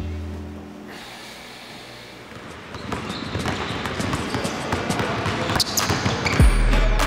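Basketballs bouncing and dribbling on a hardwood gym floor. The thuds get busier from about three seconds in. Background music stops about a second in and comes back with a heavy bass near the end.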